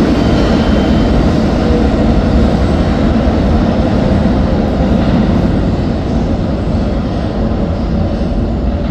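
New York City subway train running through the tunnel with a steady, loud rumble that eases a little over the last few seconds.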